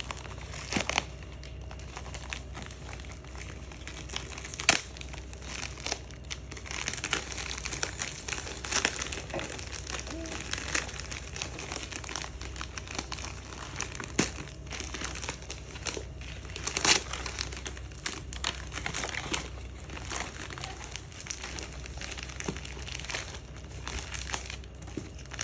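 Gift wrapping being crinkled, crumpled and torn open by hand, an irregular run of crackles and rustles with a few sharper crunches.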